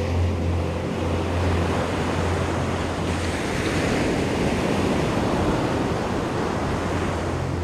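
Steady rushing noise of ocean surf breaking on the beach, with wind buffeting the microphone. A low steady hum from background music drops out about three seconds in.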